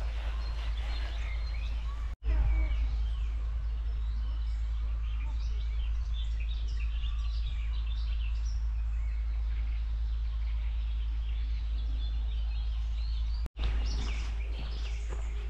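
Songbirds chirping and singing in short, varied phrases over a steady low rumble. The sound drops out for an instant twice, near the start and near the end.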